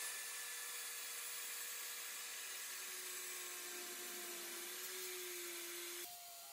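Circular saw running steadily as it cuts along a guide rail through a walnut butcher block countertop, its pitch sagging slightly under load. The sound cuts off suddenly near the end.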